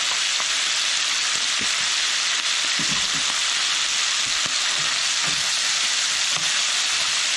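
Chopped bacon sizzling steadily as it fries in a skillet, with a few soft knocks from a wooden spoon stirring it in the pan.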